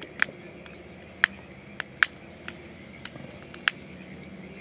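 Wood campfire crackling: irregular sharp pops and snaps from the burning split logs, a few much louder than the rest.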